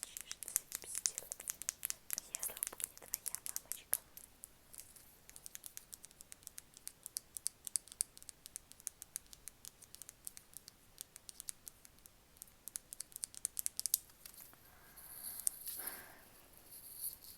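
ASMR tapping: a fast, irregular run of light, crisp taps and clicks, thinning out about fourteen seconds in.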